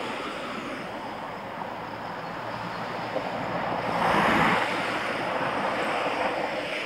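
Wind rushing over the microphone of a camera mounted on a moving vehicle, with steady road and engine noise underneath. The noise swells about four seconds in as a car passes close alongside.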